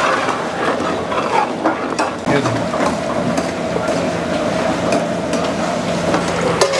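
A metal ladle stirring and scraping through a large steel pot of thick mutton nihari gravy as it sizzles, with scattered clicks of the ladle against the pot over a steady hum.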